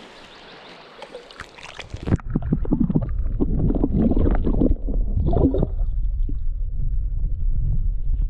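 Creek water heard through an action camera dipped into it. About two seconds in the sound turns muffled as the camera goes under, leaving a low rumbling gurgle of flowing water. Irregular sloshing from a hand moving in the water runs for a few seconds, and then the rumble settles to a steady run.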